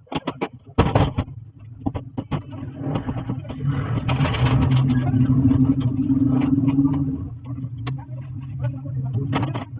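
Sewing machine running after a service, a steady mechanical hum with rapid clicking from the needle mechanism. It speeds up and gets louder about three seconds in, then eases off after about seven seconds.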